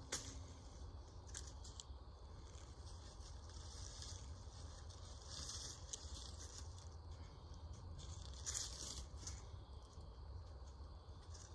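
Faint, irregular rustling and scraping of rope being pulled and wrapped around wooden sapling ladder rungs and dragged through dry fallen leaves, over a low steady rumble.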